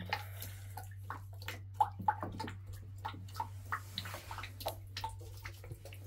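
Water splashing and dripping as a small child is washed and water is scooped over the hair, in scattered small splashes over a steady low hum.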